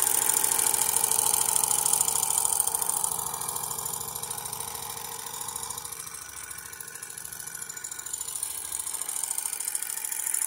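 Bowman M122 twin-cylinder model steam engine running fast on compressed air: a rapid, even beat of exhausts with a steady hiss of air. It gets quieter for a few seconds midway, then picks up again.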